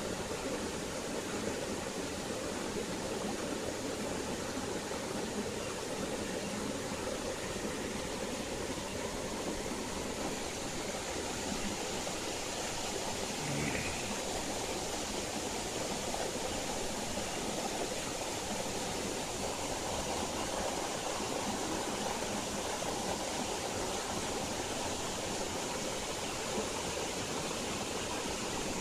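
Steady rush of water flowing in a shallow stream.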